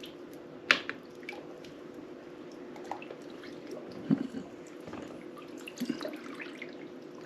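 Wet laundry being rummaged through in a small bucket of water: drips, small splashes and squelches with a few light knocks, over a faint steady hum.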